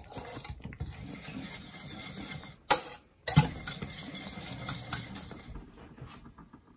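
Wire whisk rattling and scraping around a small stainless steel saucepan, whisking miso into thickening gravy. A couple of sharper clinks of metal on metal come about three seconds in, and the whisking grows fainter near the end.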